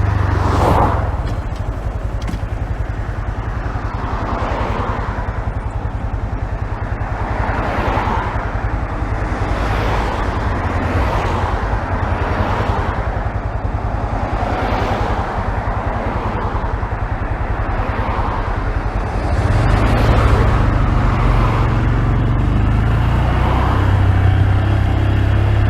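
Honda Grom's 125 cc single-cylinder engine running during a ride, heard muffled from a phone in the rider's pocket. The low engine note holds steady with recurring whooshes over it, dips slightly about a second in and gets louder about nineteen seconds in.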